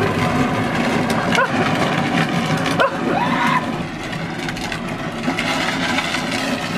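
Rushing wind and road noise on a microphone moving along a paved road, with a steady crackle throughout and a couple of brief shouts.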